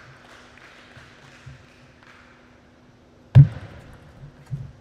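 Table tennis play: a few faint taps of the ball, then one loud, sharp crack of ball on paddle or table about three and a half seconds in, and a lighter knock about a second later as the rally goes on.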